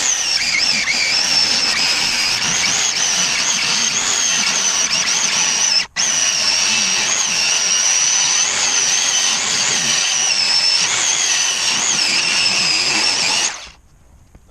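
Power tool motor running steadily with a high, wavering whine, broken by a sharp momentary gap about six seconds in, then stopping shortly before the end.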